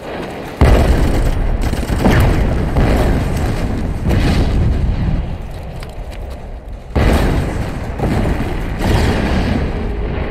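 Battlefield explosions in a war film's soundtrack: a heavy blast about half a second in and another about seven seconds in, each dying away slowly, with smaller blasts and gunfire between them.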